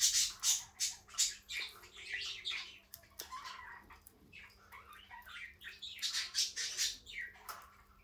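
Guinea pigs making a string of short, high squeaks, busiest at the start and again about six to seven seconds in, over a faint steady hum.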